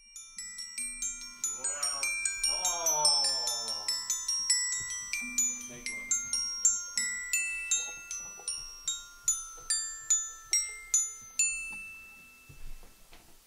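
Background music of bright, ringing high notes struck in quick succession, each dying away, with a short gliding voice-like sound about two seconds in. The music fades down near the end.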